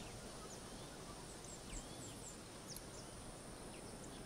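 Faint steady background hiss with a few faint, high, short bird chirps, most of them between about one and three seconds in.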